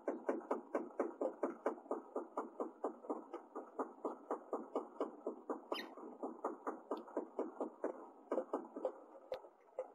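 House finch nestlings begging as the male feeds them: a steady, rapid series of short calls, about four or five a second, with one higher chirp about six seconds in.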